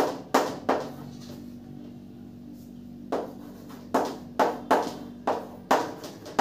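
Writing on a board: a run of about a dozen sharp taps and knocks, with a pause of about two seconds after the first three.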